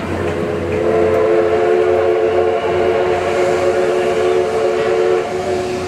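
The steam whistle of D51 498, a D51-class steam locomotive, gives one long blast of about four and a half seconds: a steady chord of several notes sounding together. Under it runs the rumble of the passenger coaches rolling by.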